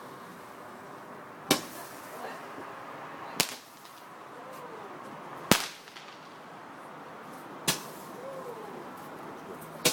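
Fireworks going off: five sharp bangs, roughly two seconds apart.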